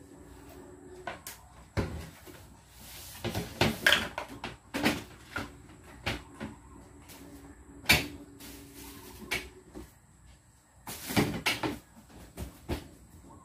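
Irregular knocks, clunks and rattles of objects being moved and set down during cleaning, with bunches of louder knocks about four, eight and eleven seconds in.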